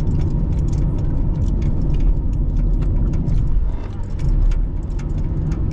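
Car driving at moderate speed, its road and engine noise heard from inside the cabin as a steady low rumble, with frequent small rattling clicks from the interior.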